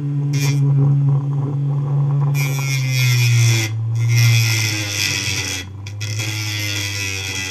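Homemade hard-drive grinder spinning a sandpaper disc, its motor giving a steady low hum that dips slightly in pitch about three seconds in. From about two seconds in, a rock is held against the sandpaper, giving a scraping hiss that breaks off briefly twice.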